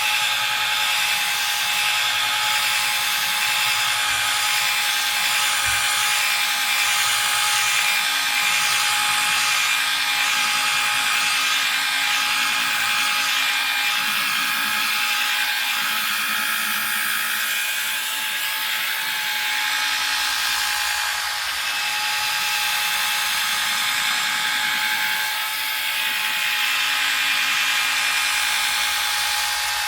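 Electric power tool running steadily with a constant motor whine, worked over wetted windscreen glass to polish it smooth, with a slight drop in level now and then as it is moved.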